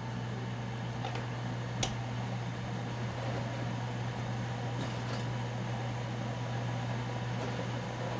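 Ninja Foodi multi-cooker's fan running steadily with a low hum under its closed crisping lid while it bakes/roasts. A single click about two seconds in.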